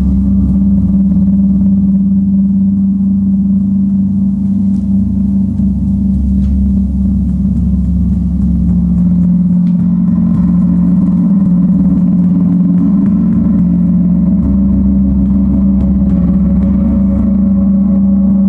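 38-inch Paiste Earth Year planet gong, tuned to C sharp (136.10 Hz), played continuously with soft felt mallets: a loud, steady, deep drone, with higher overtones swelling in about halfway through.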